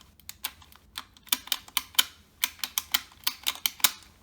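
Dyson DC50 brush-roll on/off switch buttons clicking as they are pressed over and over in quick, irregular succession, about five sharp plastic clicks a second. The newly fitted switch is being tested and works properly.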